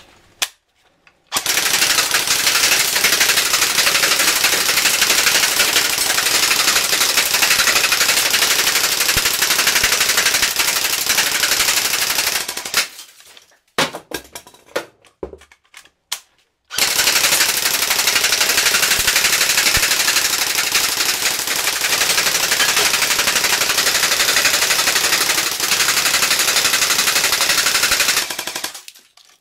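Electric airsoft gun firing on full auto in two long bursts of about eleven seconds each, with a few short bursts between them, its BBs hitting the sunbed's glass tubes and breaking them.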